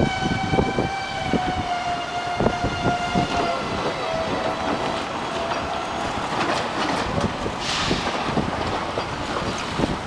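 Train horn sounding one long blast that slowly drops in pitch and fades out over about five seconds, over the low rumble of a train on the rails. A short hiss comes about eight seconds in.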